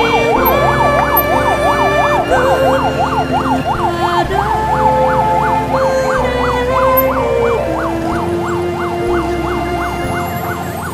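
Electronic yelp siren rising and falling about three times a second, over background music whose chords change every two seconds or so.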